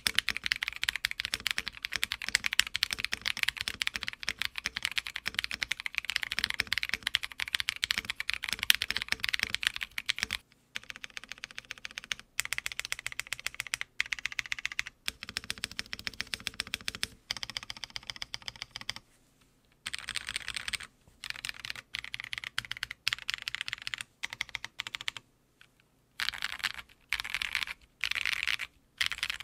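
Typing on an Odin Gaming Nova65 gasket-mount 65% custom mechanical keyboard. Fast, continuous keystrokes run for about the first ten seconds, then shorter runs of keystrokes with brief pauses between them.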